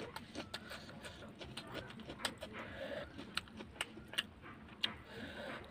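Close-miked chewing of a mouthful of pork curry and rice, with wet mouth clicks and smacks at irregular intervals. Fingers mix the curry and rice on the plate.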